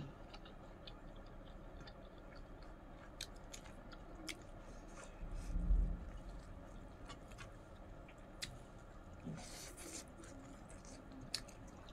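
Close-miked chewing of chicken curry and rice: soft wet mouth smacks and scattered small clicks. A low thump comes about halfway through, and a short hiss comes near the end.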